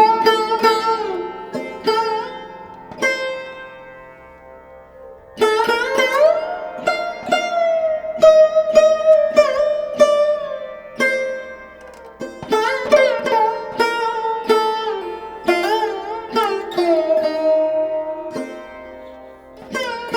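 Background music: a plucked string instrument playing a melody, its notes bending and gliding in pitch, with a quieter lull about four seconds in before the playing picks up again.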